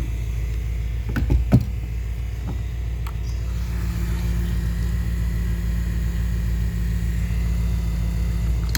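An engine idling steadily, with a few sharp clicks and a clunk about a second and a half in as the fuel cap and fuel nozzle are handled.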